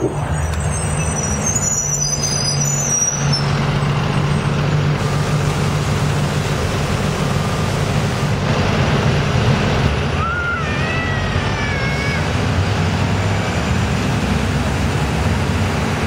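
City transit buses running in street traffic, with a steady low engine hum. There are high-pitched brake squeals about a second or two in.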